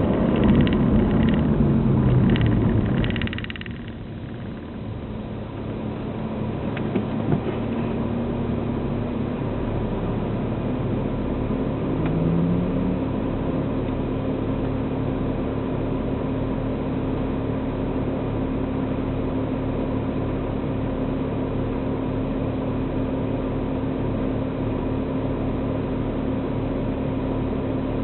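Engine and straight-piped cat-back exhaust of a BMW E90 diesel heard from inside the cabin: loud under load at first, the pitch falling as the revs drop about three seconds in, then a steady cruising drone.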